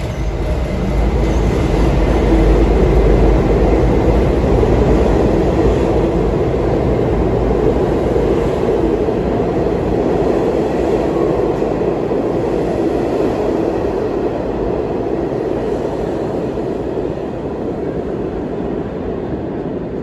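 R68A New York City subway train pulling out of an underground station: its motors and steel wheels on the rails swell about a second in and are loudest a few seconds later as it gathers speed past the platform. The sound then slowly fades as the last cars leave.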